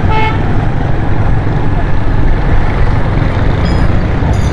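Motorcycle ridden through city traffic: a steady rush of wind on the microphone and road noise over the running engine. A few brief high-pitched chirps come near the end.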